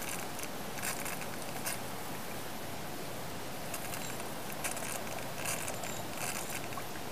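Several short crackling rustles from a gloved hand handling a plastic bottle over a paper-filtered funnel, over a steady hiss.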